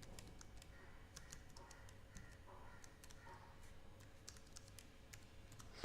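Faint computer keyboard typing: scattered, irregular keystrokes as a command is entered.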